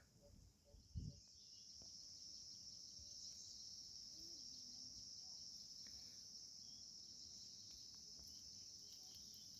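Faint, steady, high-pitched chorus of insects, with a single soft thump about a second in.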